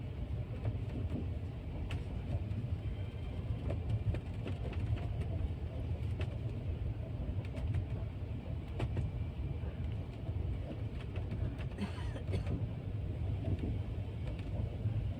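Rajdhani Express passenger train running, heard from inside the coach: a steady low rumble with scattered clicks and creaks.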